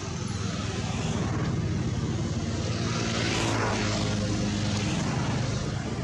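A motor engine passing by: a steady low drone that builds to its loudest about three to four seconds in, then starts to fade near the end.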